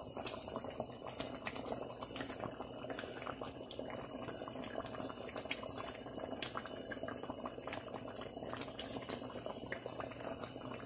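Peas cooking in water in a pan over a medium flame, a steady bubbling simmer with many small pops and crackles, as the water cooks down to soften the peas.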